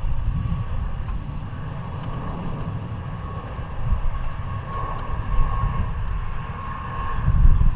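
Jet airliner engines running with a steady whine, over a low, gusty rumble of wind on the microphone.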